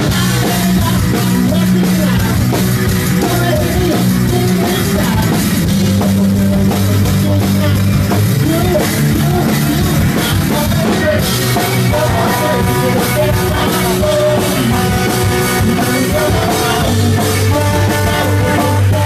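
A live rock band playing loud, recorded from within the crowd: a driving drum kit, guitars and strong, sustained low bass notes.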